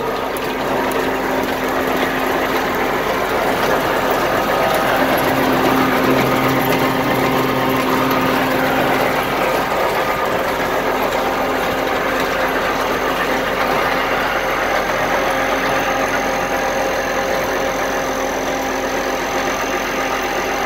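Arts Way Model 425 grinder-mixer running, driven by a tractor: a steady, even mechanical hum of the engine and the turning machinery, with no change in speed.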